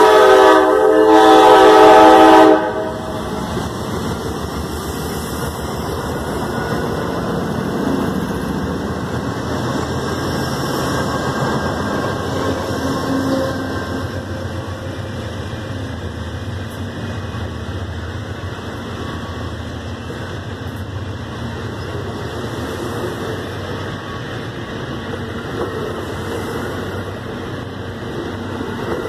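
An Amtrak GE Genesis locomotive's air horn sounds a loud, steady chord that cuts off about two and a half seconds in. After it, a steady rolling rumble comes from the Superliner bilevel passenger cars passing close by.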